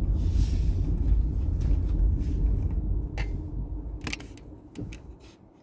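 A car's low road or engine rumble heard from inside the cabin, with a few sharp clicks of the camera being handled. The rumble dies away over the last couple of seconds.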